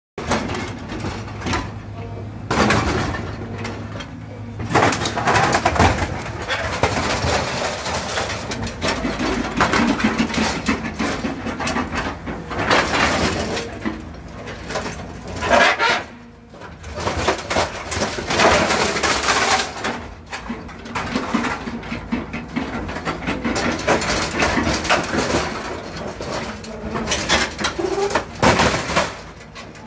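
Hydraulic excavator with a car-dismantling grab tearing and crushing a scrap car's body: irregular crunching, scraping and creaking of sheet metal, with loud swells and short lulls, over the excavator's running engine.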